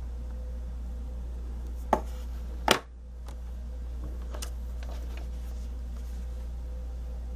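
Two sharp knocks of stamping tools against the work surface, the second louder, as a stamp is re-inked for a second coat, followed by a few faint clicks. A steady low electrical hum runs underneath.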